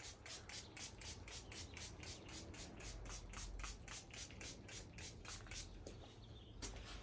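Waffle-weave microfibre towel wiped quickly back and forth across a car windshield, about four or five hissing strokes a second, buffing off glass polish. The strokes stop a little past halfway, with a couple of single strokes near the end.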